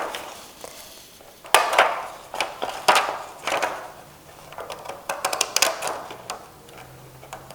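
Decorative zigzag-edge scissors cutting scrapbooking paper: several sharp snips in small clusters, with short pauses between.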